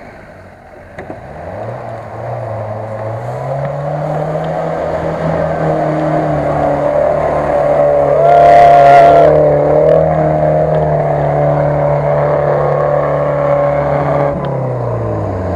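UAZ-469 off-roader's engine revving up and held at high revs as it churns through deep mud, loudest as it passes close by about eight seconds in with a short rush of noise, then pulling away with the revs dropping near the end.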